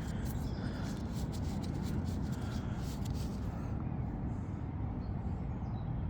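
Steady low rumble of wind on the microphone, with a quick run of light scratchy clicks and rustles over the first three seconds or so.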